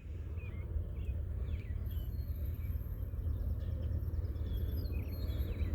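Outdoor ambience: a low steady rumble, slowly growing louder, with birds chirping now and then.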